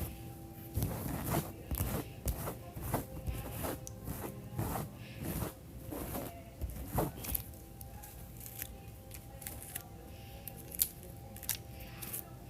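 A coarse comb dragged through a doll's thick hair in short, scratchy strokes, one or two a second, thinning out in the second half.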